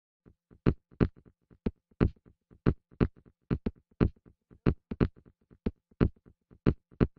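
Sparse electronic percussion beat: dry, sharp hits at a steady pulse, a strong hit about every half second to a second with fainter clicks between, and nothing held in between.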